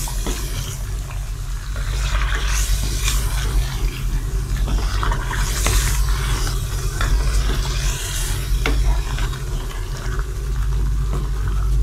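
Wooden spoon stirring chicken in a wet yogurt and nut-paste sauce in a metal pan, scraping and clicking against the pan over and over, with the sauce sizzling on high heat. A steady low hum runs underneath.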